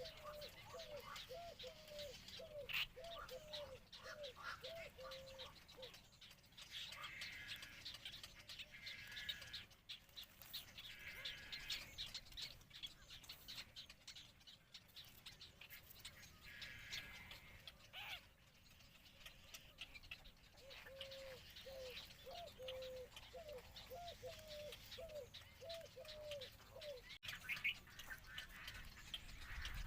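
Medium egret chicks calling at the nest. Runs of short, low call notes, about two a second, come near the start and again past the middle, with bursts of higher chattering in between.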